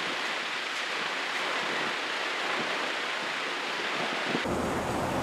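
Steady rushing air of a large pedestal shop fan, with a few faint light knocks. Near the end it switches abruptly to a deeper fan hum.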